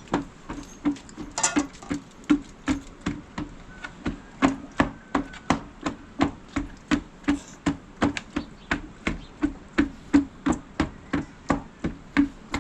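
Steady, evenly spaced knocks, about three a second, each with a short low ring, like a tool striking wood over and over.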